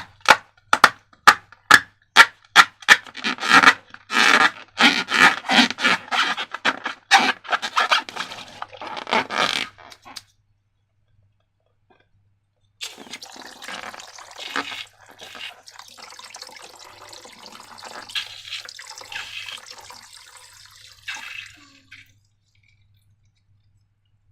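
Slime being worked and squished: a fast run of loud wet strokes, then a pause of a few seconds, then softer, continuous squishing.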